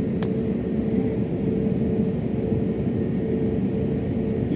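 Airliner's jet engines running steadily, heard from inside the passenger cabin: an even drone with a steady hum and low rumble. A single short click sounds about a quarter second in.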